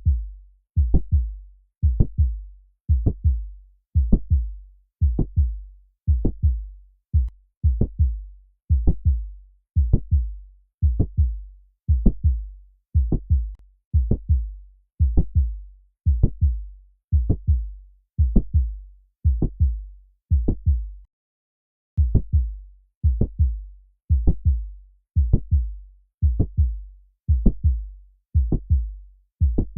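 Stethoscope recording of a heart beating about once a second, each beat a cluster of thumps and clicks: the mid-systolic click and systolic murmur of mitral valve prolapse. The rhythm breaks off briefly about two-thirds of the way through.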